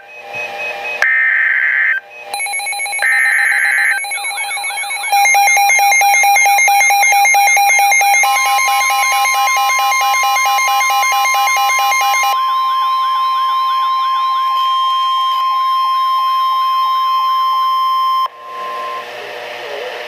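EAS tornado-warning alert on a Midland NOAA weather radio. It opens with harsh buzzing SAME data-header bursts, then the radio's alarm sounds as a fast warbling siren. Under the siren runs the broadcast's steady single-pitch warning tone, which cuts off about a second before the end.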